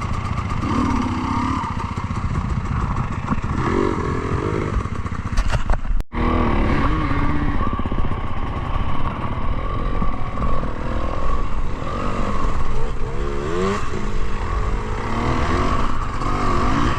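Enduro motorcycle engine running while riding, its pitch rising and falling as the throttle is worked. The sound cuts out sharply for a moment about six seconds in.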